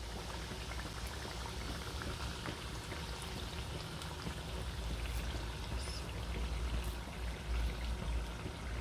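Onion-tomato masala simmering in a pot on a low gas flame, bubbling and crackling faintly with fine spattering over a steady low rumble.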